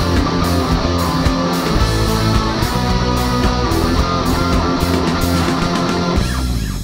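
Rock background music with guitar and a steady beat.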